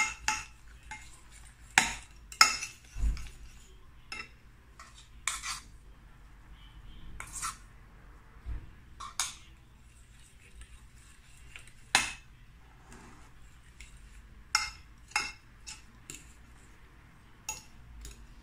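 A metal utensil stirring a thick egg batter in a glass baking dish, clinking against the glass in sharp, irregular knocks, a dozen or so, with quieter stirring between.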